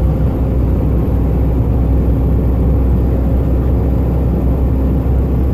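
Heavy truck's engine and road noise heard from inside the cab while cruising at highway speed: a steady, low drone.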